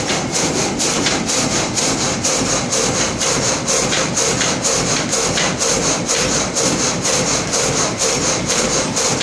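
Reciprocating frame saw cutting lengthwise through a log, a steady rhythmic rasp of about three strokes a second.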